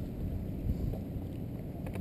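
Wind rumbling on a GoPro's microphone, a steady low buffeting with a faint click near the end.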